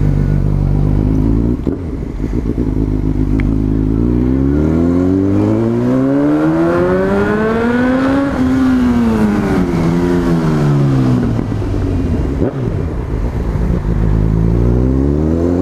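Honda CB1000R's inline-four engine running steadily at low revs, then pulling with one long rising rev from about four seconds in, falling off again with a brief rise on the way down, and settling low before climbing once more near the end.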